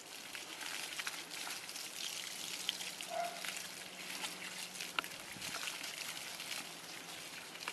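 Water from a garden hose spattering and trickling as a dog is rinsed, with scattered drips and splashes.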